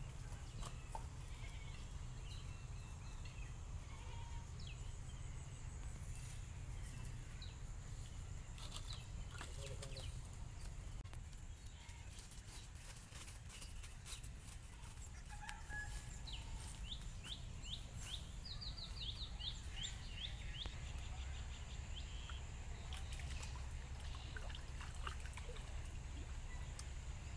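Outdoor ambience: a low steady rumble with scattered bird calls and chirps, including a quick run of about a dozen short high chirps a little past the middle.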